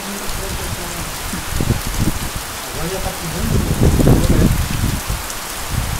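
Heavy rain pouring down in a steady hiss, with wind buffeting the microphone in low gusts that are loudest about four seconds in.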